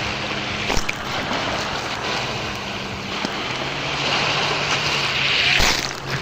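Black Sea waves washing in, with a swell that builds and falls away near the end, over a low steady hum.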